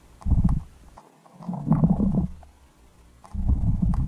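Underwater sound picked up by a submerged camera: three muffled low rumbles about a second and a half apart, with a few faint clicks between them.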